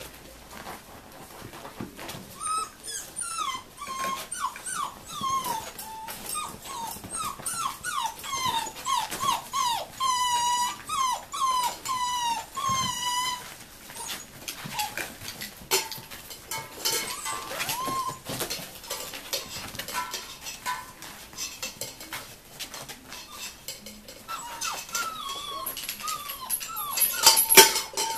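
Six-week-old Rhodesian Ridgeback puppies whining and yelping in a rapid run of short, falling cries, with scattered clicks and knocks as they scramble about. Near the end there is a loud burst of metal clinking from the tin cans hanging on the puppies' play frame.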